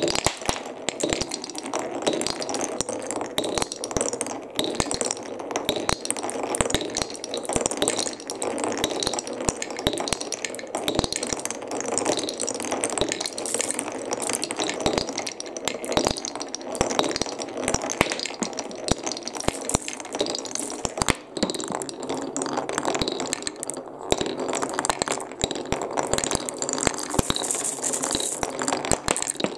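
Glass marbles rolling through a wooden Cuboro marble run: a continuous rolling rumble dotted with many clicks and knocks as the marbles drop through the blocks and clink against one another in the wooden catch tray.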